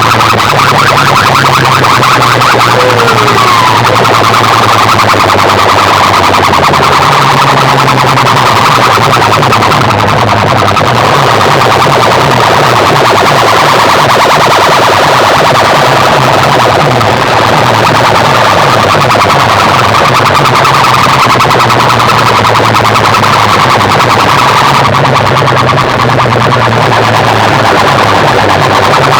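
Large DJ sound-system speakers blasting at full volume in a sound-box competition: a rapidly warbling, siren-like electronic tone over held low bass notes, the bass shifting pitch about seven seconds in.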